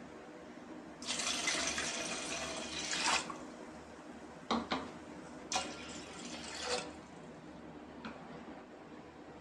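Water poured into an aluminium pot of toor and moong dal in two pours, the first about two seconds long and the second just over a second, with two short knocks between them.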